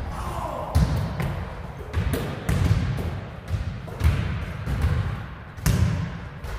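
Basketball bouncing on a hard court: a series of heavy, irregularly spaced thuds about a second apart.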